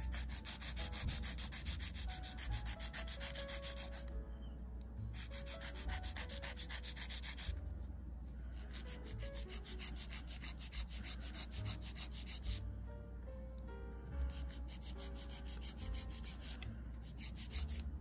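Nail file rasping against the edge of a clear plastic nail extension tip in rapid back-and-forth strokes, shaping the tip. The filing comes in several runs broken by short pauses.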